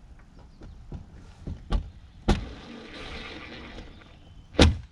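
Hard knocks and clunks from hardware and tools being handled while a flush slam latch's catch plate is fitted, with a scratchy rustle in the middle and one loud thump near the end.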